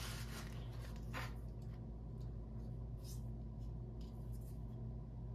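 Faint, intermittent rustling of paper and stickers being handled, over a steady low hum.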